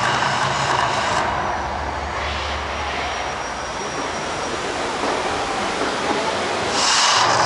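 Mirage volcano show erupting: a loud rushing roar of its fire jets and fountains with a low rumble. It eases off after about a second and surges back louder and hissier near the end.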